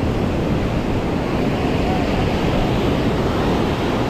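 Beach ambience: a steady wash of surf mixed with wind buffeting the microphone, with faint voices in the background.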